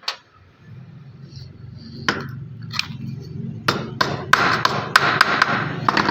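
Several sharp metallic taps and clinks, bunched together in the second half, of metal parts and tools being handled on a workbench. A low steady hum runs under them.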